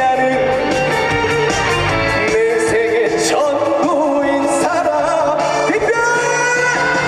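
Live band music with a male lead vocal singing a song; guitar in the backing.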